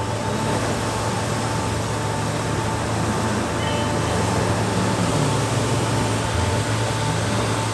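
A vehicle running with a steady noisy rush, laid over background music that holds steady tones.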